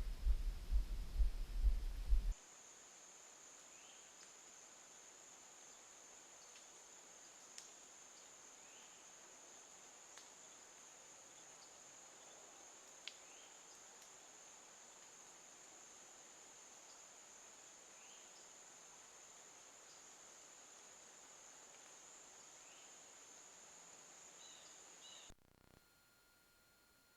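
Insects, crickets or katydids, singing in a steady high-pitched drone, with a few faint short chirps and ticks over it. It opens with about two seconds of loud low rumbling and cuts off suddenly near the end.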